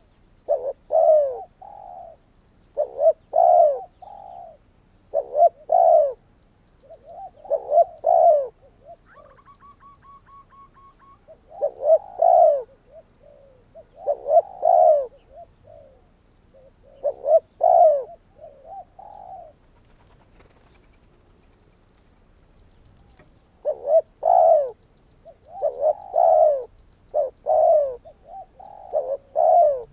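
Spotted dove cooing over and over in short, repeated phrases, each about a second long, with a pause of a few seconds near two-thirds of the way through.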